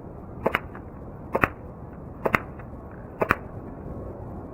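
Four shots from a Red Jacket CO2 BB pistol, about one a second, heard from beside the target 25 feet away: each a sharp crack followed almost at once by a second crack as the BB hits the target, over steady wind noise.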